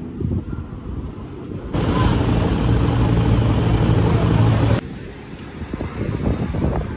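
Street traffic noise with a motor vehicle's engine running close by as a steady low hum under hiss. It comes in suddenly about two seconds in and cuts off just before five seconds, with low gusty rumbling on the microphone before and after.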